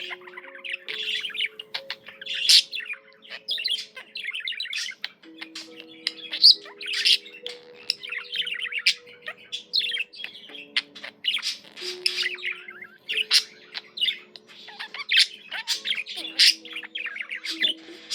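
Pet budgerigar warbling and chattering without a break, a fast jumble of chirps, squeaks and short whistles with frequent sharp, louder calls.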